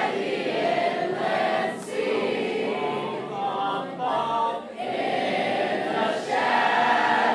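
A large group of teenagers singing together, holding long notes in phrases with short breaks about two and five seconds in.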